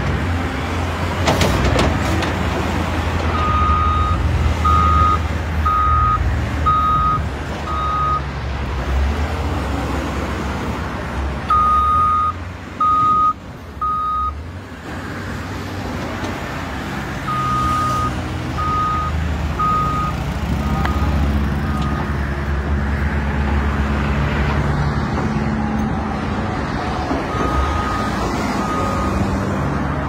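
Caterpillar 962K wheel loader's diesel engine running as it manoeuvres, with its back-up alarm beeping about once a second in several runs of two to five beeps while it reverses.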